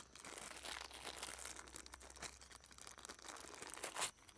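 Faint crinkling and light clicking as the small parts of a shotgun stock shim kit are handled and sorted, with one slightly louder click near the end.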